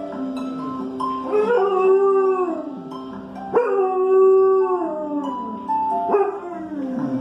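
Dog howling three times over an alarm clock's chiming melody; each howl rises quickly, holds, then falls away.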